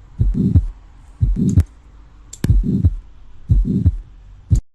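Heartbeat heard through a stethoscope with a systolic murmur. Each beat is the first heart sound, a blowing whoosh, then the second heart sound, about one beat a second, and the sound stops abruptly near the end.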